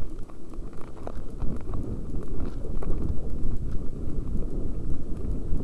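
Mountain bike riding down a rough dirt trail, heard from a helmet-mounted camera: a steady low rumble of tyres and wind with many small irregular knocks and rattles as the bike and camera jolt over bumps.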